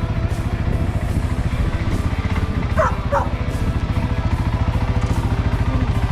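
CFMoto Cforce 600 ATV engine running steadily with a fast, even firing pulse. A dog barks twice in quick succession about three seconds in.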